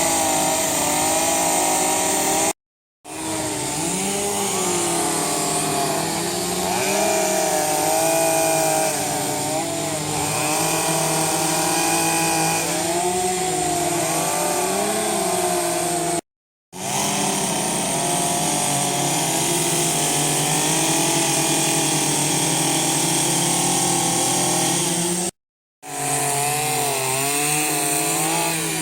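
Chainsaw cutting into a redwood block, its pitch rising and falling as it is revved and loaded in the wood. Three short, dead-silent gaps break the sound about 3, 16 and 25 seconds in.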